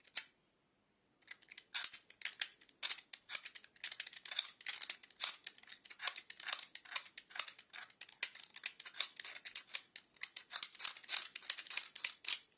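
Utility knife blade scraping over the metal contact strips of an LED lamp base in quick, repeated scratchy strokes, about four or five a second, after a single click at the start.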